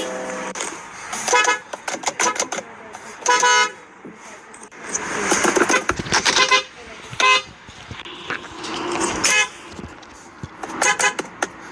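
Car horns honking in a series of short toots a couple of seconds apart, with street noise between.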